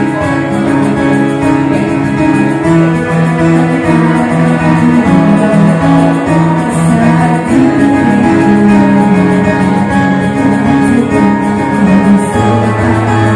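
Loud music playing, a melody of long held notes over a steady backing.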